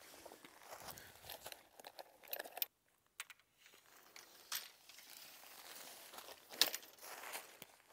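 Faint rustling and crinkling of a Stone Glacier SkyDome 6P tent's fabric as poles are fed through its apex clips, with scattered light clicks and taps of the poles. The sharpest click comes about two-thirds of the way in, and the sound briefly drops out about three seconds in.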